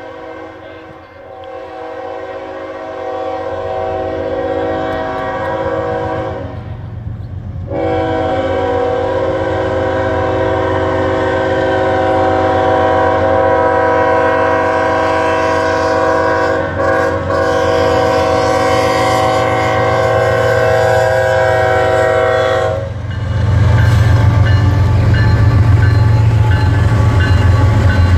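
Diesel freight locomotive's air horn sounding as the train approaches a grade crossing, growing louder as it nears. It gives a long blast, breaks briefly, then holds a second blast of about fifteen seconds. When the horn stops near the end, the lead GE ES44AH locomotive's diesel engine rumbles loudly as it passes close by.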